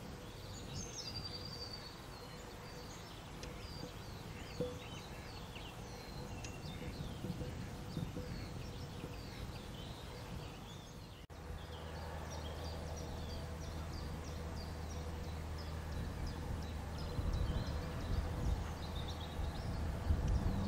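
Several songbirds singing and chirping, with many short high calls and trills overlapping. After a cut about halfway through, a low steady rumble runs under the birdsong.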